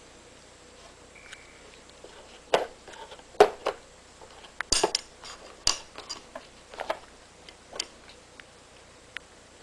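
Loose brass-plated .22 Long Rifle cartridges clinking and rattling in their cardboard box as cats bite and paw at it: about ten sharp, irregular clicks and knocks, closest together in the middle.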